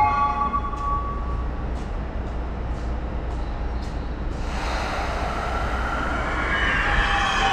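Subway train noise at a Toei Shinjuku Line platform: a steady low rumble, then from about halfway through a louder rush with whining tones building up.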